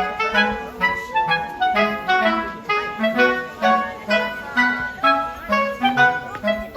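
Background music: a bouncy tune with a woodwind melody over a bass line, short notes in a steady rhythm.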